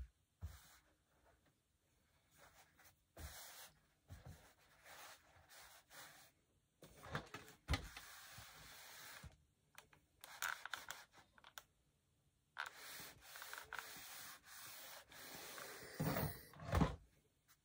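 Cotton fabric being folded and smoothed by hand, then a steam iron sliding back and forth over it on a padded pressing board. The sound is soft rubbing that comes and goes in stretches of a second or two, with a few light knocks.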